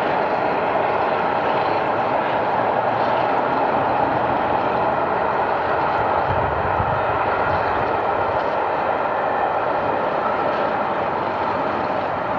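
Three-cylinder Peppercorn A1 Pacific steam locomotive Tornado working a passenger train, its exhaust heard as a steady, even rush without distinct beats.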